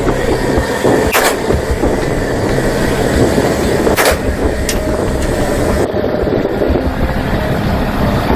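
Boat running at speed: a steady engine drone under rushing water and spray. Two sharp bangs cut through it, about a second in and about four seconds in, with a weaker one just after the second.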